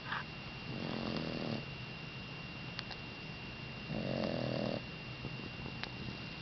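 Boxer dog snoring in its sleep: two long snoring breaths, about three seconds apart, with a brief high squeak right at the start.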